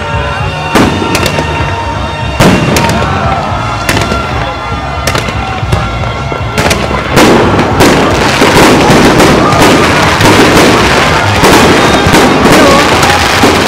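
Fireworks going off in a rapid, overlapping string of bangs and crackling, growing denser and louder about seven seconds in.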